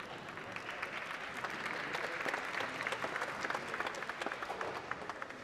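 Audience applauding with many hands clapping. It swells to its loudest about two to three seconds in and dies away near the end.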